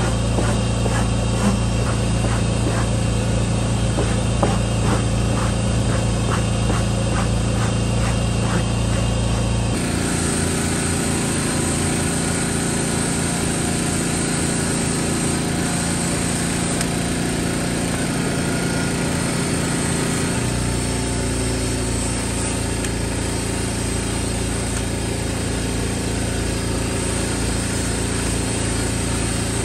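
A rubber pet-hair removal tool scraping across carpet in repeated quick strokes over a steady motor hum. About ten seconds in this gives way to a cordless drill spinning a stiff brush, scrubbing a carpeted car floor mat.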